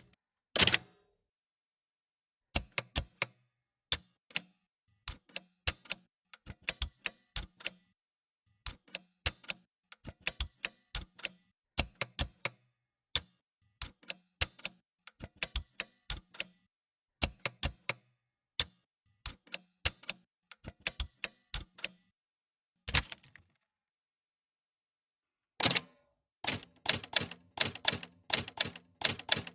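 Manual typewriter keys striking in quick runs of several sharp clacks, broken by short pauses, with a longer silent gap a little past two-thirds of the way through.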